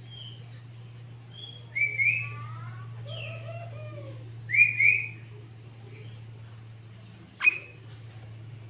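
Sooty-headed bulbul calling: two loud pairs of clear whistled notes, a few seconds apart, among fainter chirps, over a steady low hum. A sharp click comes near the end.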